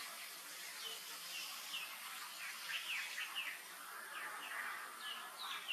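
Birds chirping: a string of short, high chirps, each falling in pitch, coming several together at times over a steady outdoor hiss.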